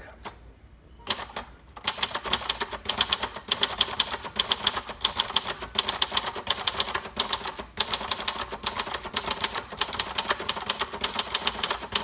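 1970 Royal Sprite manual portable typewriter, built by Silver-Seiko, being typed on. After a second of near quiet and a single click, a fast, even run of keystrokes begins, the typebars striking the paper on the platen several times a second.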